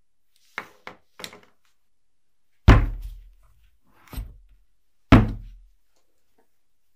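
Three quick light knocks, then three heavy thuds about a second and a half apart, the middle one softer, each dying away quickly.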